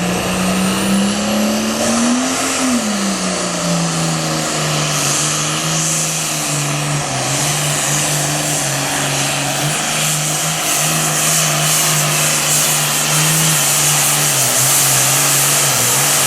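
Super farm class pulling tractor's engine running hard under load as it pulls the sled: its pitch climbs for a couple of seconds, drops back about three seconds in, then holds steady with small dips, with a growing hiss over it.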